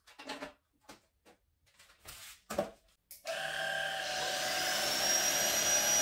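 A few short plastic clicks and knocks as the mop head is fitted, then about three seconds in the YOKEKON cordless stick vacuum's brushless motor switches on and runs steadily at its first speed. A high whine rises briefly as the motor spins up, then holds.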